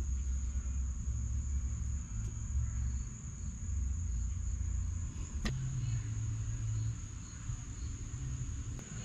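Outdoor background: a steady high-pitched tone under a low rumble that swells and fades, with one sharp click about five and a half seconds in and faint light ticks after it.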